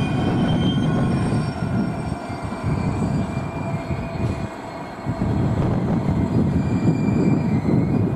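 Class 66 diesel-electric locomotive's two-stroke V12 engine running as the locomotive moves slowly through the yard on a shunting move. The engine sound dips briefly a little after halfway, then comes back up.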